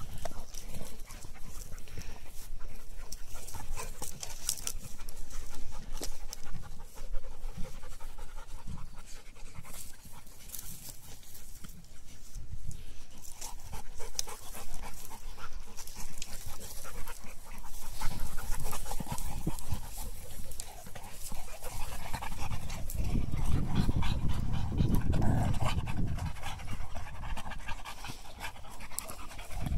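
Dogs panting hard while playing with and mouthing a soccer ball, with scattered short knocks and rustles. A louder, deep stretch of sound comes about three-quarters of the way through.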